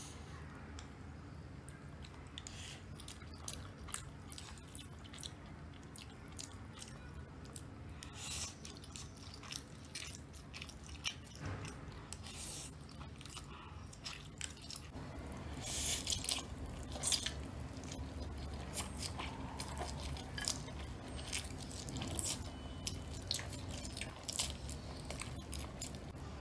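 Close-miked eating of instant noodles: chewing with many short, wet mouth clicks, getting louder from about the middle on.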